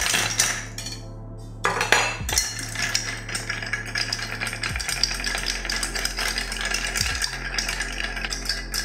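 Ice cubes clattering into a glass mixing glass, then a long bar spoon stirring the ice round and round: a steady clinking rattle of ice against glass, starting just under two seconds in.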